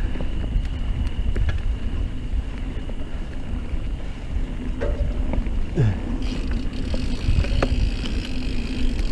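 Santa Cruz Nomad mountain bike riding a dirt trail: wind buffets the camera microphone over the steady rumble of the tyres, with scattered clicks and rattles from the bike. Hiss rises over the last few seconds.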